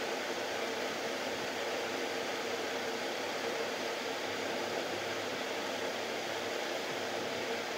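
Steady background hiss with a faint, even hum underneath and no distinct events, typical of room noise from a fan or air conditioner picked up by the recorder.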